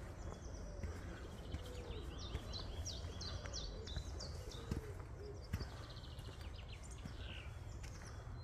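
Songbirds singing in a spring woodland: bursts of high repeated notes and fast trills, with low cooing notes underneath. A steady low rumble runs beneath, with a few soft knocks.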